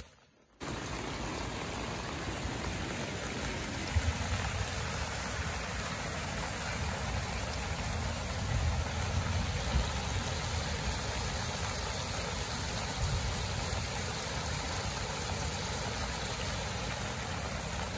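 Swollen, muddy river in flood after heavy rain, rushing over a small weir: a steady rush of water, starting after a brief gap at the very beginning.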